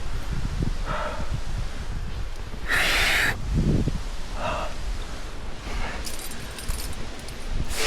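A climber's hard breathing: short, noisy exhales every second or so, with a sharp, louder one about three seconds in. Wind buffets the microphone throughout.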